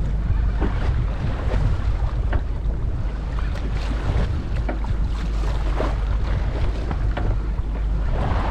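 Wind rumbling on the microphone over water rushing and splashing along the hull of a small boat under way.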